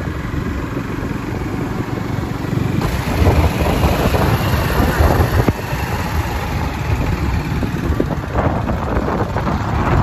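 Rumbling road and wind noise from a moving car, changing abruptly every few seconds.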